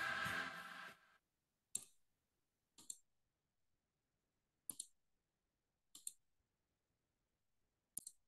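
Choir music fades out about a second in, then near silence broken by five brief, sharp clicks spaced one to two seconds apart.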